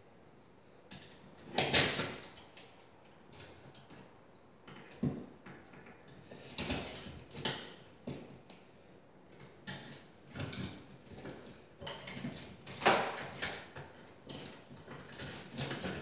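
Electrical wires being worked into a metal old-work electrical box: irregular scraping, clicking and rattling of metal and wire, loudest about two seconds in and again about thirteen seconds in.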